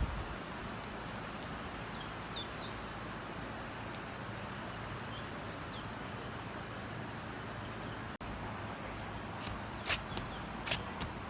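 Outdoor ambience: a continuous high-pitched insect drone over a steady low rumble, with a few faint bird chirps in the first three seconds. Sharp clicks or footsteps come in during the last two seconds.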